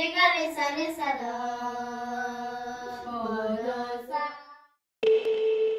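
A voice singing long, sliding notes that fade out about four and a half seconds in. After a brief silence, music starts near the end with a steady held tone.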